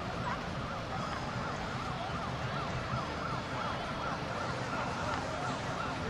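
A siren sweeping rapidly up and down in pitch, about three sweeps a second, over a steady rush of background noise.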